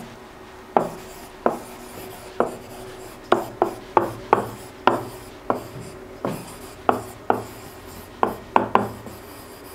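A pen writing on an interactive whiteboard: short, sharp taps, about two a second at uneven spacing, with light scratching between strokes as letters are written out.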